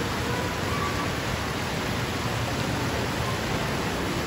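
Mall wishing-well fountain, water splashing steadily into its pool.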